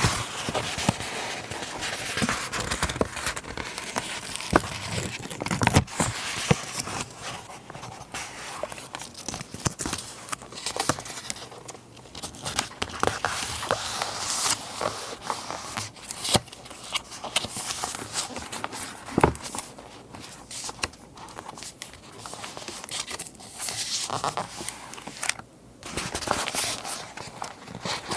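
Paper rustling and crinkling as it is handled, with many small clicks and scrapes scattered throughout.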